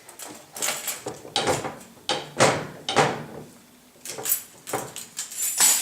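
Dishwasher rack being pushed and pulled in and out on its rails by a baby: about ten short rattling slides and knocks, one after another.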